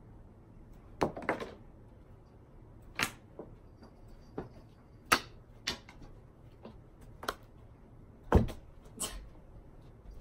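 Thrown playing cards striking hard surfaces: a string of about ten separate sharp clicks and taps, spaced irregularly, with a heavier thump about eight seconds in.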